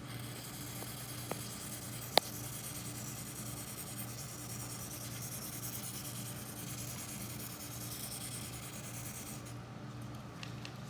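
Aerosol carburetor cleaner spraying in one long steady hiss that stops about nine and a half seconds in, with a single sharp click about two seconds in and a steady low hum underneath.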